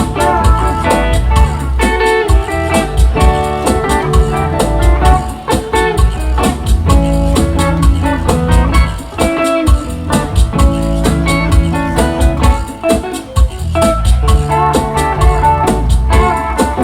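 Live band playing an instrumental break, a guitar to the fore over a steady beat.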